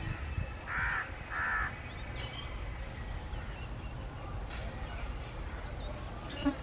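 Two short bird calls in quick succession about a second in, over a low steady rumble.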